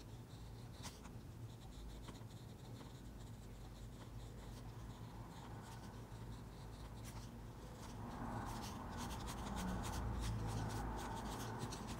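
Mechanical pencil scratching on paper in short strokes over a steady low hum, the strokes getting busier and a little louder over the last few seconds.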